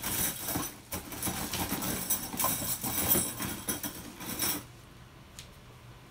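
An alpaca batt being pulled off the toothed carding cloth of an electric drum carder's drum with a doffing hook: a dense, scratchy rustle of fibre tearing free of the teeth that stops after about four and a half seconds.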